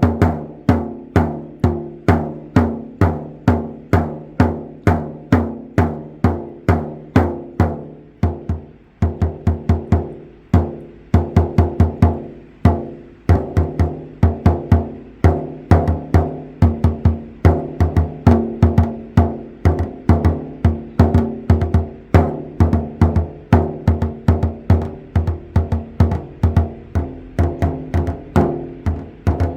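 Budget 10-inch shamanic frame drum struck in a steady beat of about two strokes a second, each stroke ringing on with a deep boom. The beat pauses briefly about eight seconds in and later picks up some quicker doubled strokes.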